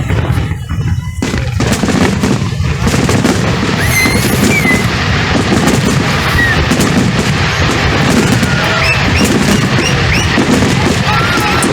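Fireworks display: a dense, continuous run of bangs, booms and crackle, with a few short high whistling tones mixed in.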